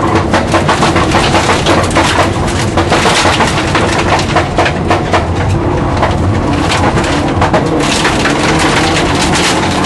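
Rally car's engine running hard, heard from inside the cabin, under a constant crackle of gravel and stones striking the underbody and wheel arches as it drives a loose dirt stage.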